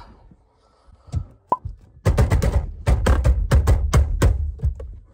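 Factory steering wheel being jerked and knocked to free it from the steering column spline, which is stuck tight: a couple of single clicks, then a rapid, irregular run of loud knocks and thuds, several a second, for about three seconds.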